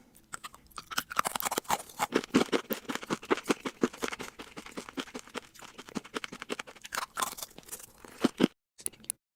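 Loud crunchy chewing: a dense, rapid run of crunches from someone eating, breaking off briefly near the end.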